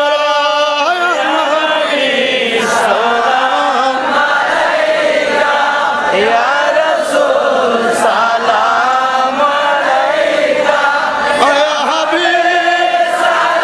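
An Urdu naat in praise of the Prophet, sung as a slow chant with long, wavering held notes that run on without a break.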